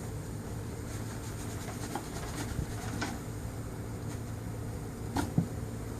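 Honeycomb being fitted into a wooden nuc hive box: a few light knocks and taps, about two and three seconds in and two sharper ones near the end, over a steady low hum.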